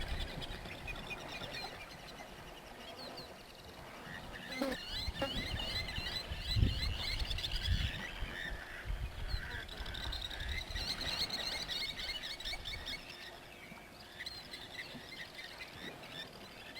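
Many small birds chirping with quick, repeated calls, over low rumbles and thumps; the loudest thump comes about six and a half seconds in.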